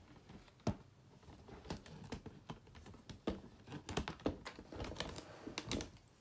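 Scattered light clicks and taps of paperback books and paper being handled on a table, irregular, with the sharpest click about a second in.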